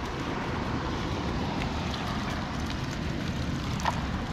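Wind buffeting the camera microphone: a steady, flickering low rumble with a faint hiss, and a few faint knocks.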